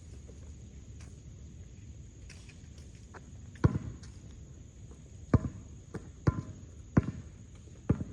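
A basketball being bounced, five loud thumps at uneven gaps of about a second, starting about three and a half seconds in.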